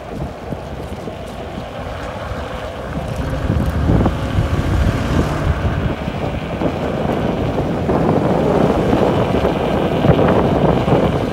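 Wind buffeting the microphone of a rider on a moving electric scooter, growing louder from about three seconds in as the scooter picks up speed.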